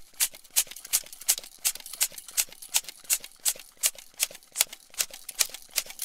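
Air pump worked rapidly, a short hiss of air with each stroke, about three strokes a second.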